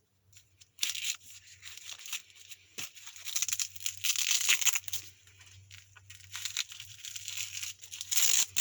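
Hook-and-loop (Velcro) strap of a Combat Application Tourniquet being peeled open and pulled loose in a series of short tearing rips, the longest about four seconds in and another near the end.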